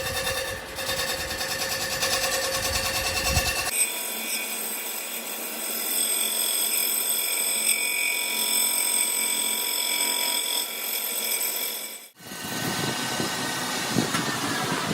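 Workshop power tool running steadily, with a high, steady whine and mechanical noise. The sound changes abruptly twice, at about 4 seconds and about 12 seconds, where the footage is cut.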